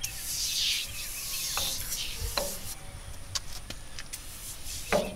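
Aerosol can of degreaser spraying onto a tractor engine block: a hissing spray, strongest in the first second and trailing off before the halfway mark. Then a few short clicks, and a single louder knock near the end.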